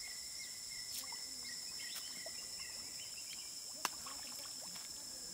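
Forest riverbank ambience: a steady high insect whine with a fainter, lower steady tone beneath it, scattered short bird chirps, and a few sharp clicks, the loudest just before four seconds in.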